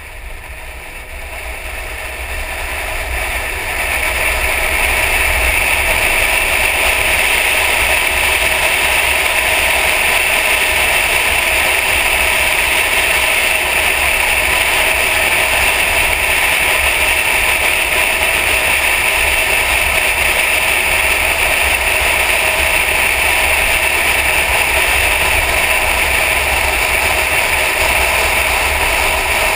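Mercedes-Benz E63 AMG driving at speed on a track, heard from a camera mounted on the hood: a loud, steady rush of wind and engine and road noise that builds over the first few seconds and then holds even.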